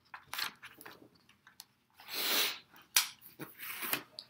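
Pages of a hardcover picture book being turned by hand: paper rustling, with a longer swish about halfway through as a page sweeps over and a few sharp taps as it lands.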